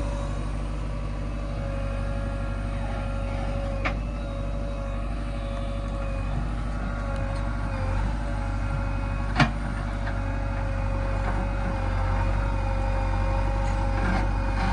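Heavy diesel machinery running steadily: a low rumble with a steady whine over it. A sharp knock comes about four seconds in, and a louder one about nine seconds in.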